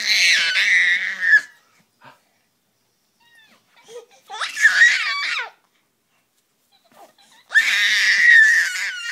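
A five-month-old baby shrieking in high-pitched squeals, in three long bursts a few seconds apart.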